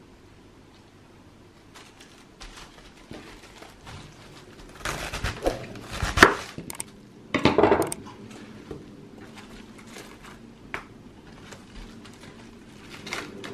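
A knife cutting through the base of a Chinese (Napa) cabbage on a wooden cutting board. There are two bursts of crisp crunching about five and seven seconds in, with light taps and leaf rustling around them as the leaves are pulled off.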